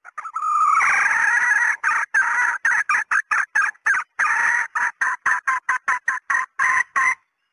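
Red junglefowl hen cackling: one long drawn call, then a rapid run of short clucks, about four a second, that stops abruptly near the end.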